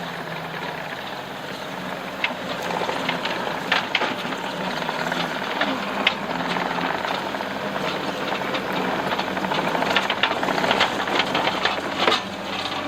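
Case TR270 skid steer's diesel engine running steadily, with repeated sharp metallic knocks and clanks from about two seconds in as the machine works.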